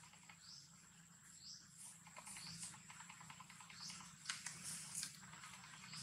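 Faint forest ambience: a short, high, rising chirp repeats about once a second over a steady thin high whine, with a few soft clicks past the middle.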